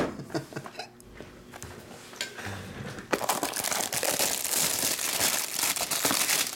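A few light knocks, then from about three seconds in, plastic shrink wrap crinkling steadily as it is peeled off a small cardboard trading-card box.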